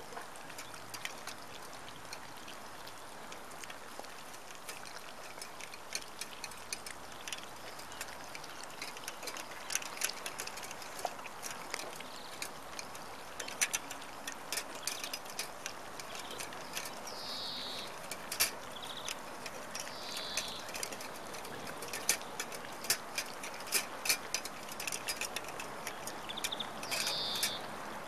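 A litter of Hovawart puppies eating from stainless-steel bowls in a wire rack: irregular clicks and clinks of food and bowls with chewing and lapping, growing busier in the second half.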